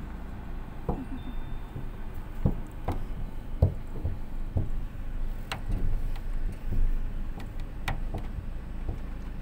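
Steady low rumble of a car moving slowly, heard from inside the cabin, with about ten irregular knocks and clicks scattered through it.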